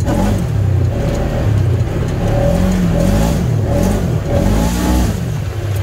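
Engine of a 900 cc side-by-side UTV driving a rough dirt trail, revving up and falling back several times as the throttle is worked, rising and dropping in pitch about once a second.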